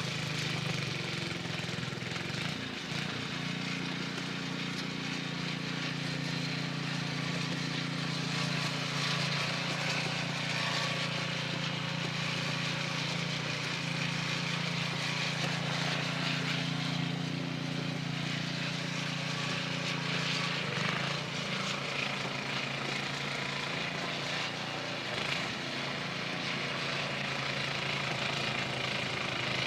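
Strong blizzard wind blowing and gusting across the microphone, with a steady low hum underneath.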